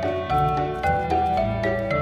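Background music: a melody of short held notes over a bass line that changes every half second or so.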